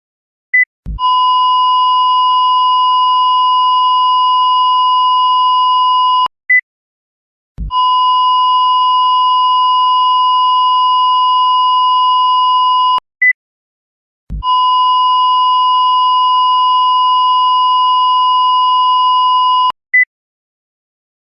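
Cardiac monitor sound effect with defibrillator paddles, repeated three times: a brief low thump from the paddles, then a steady flatline tone lasting about five seconds, then a single short high beep. The tone is the monitor's asystole alarm.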